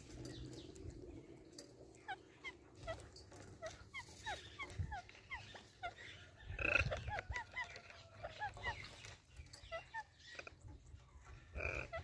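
Alexandrine parakeets giving many short, quick chirps, with two louder calls, one about seven seconds in and one near the end.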